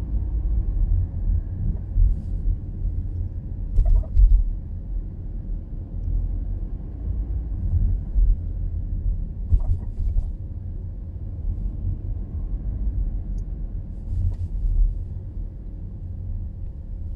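Audi A6 (4G) on the move: a steady low road rumble with a few sharp knocks, several seconds apart. The knocks are the front-axle clunking and clattering the car is being shown for.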